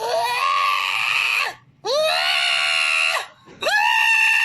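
Three long, loud screams in a row, each lasting about a second and a half, with a quick upward swoop in pitch at the start of each one before it holds steady.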